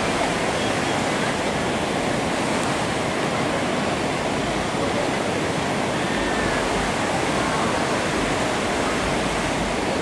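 Whitewater river rapids rushing: a loud, steady wash of churning water with no letup.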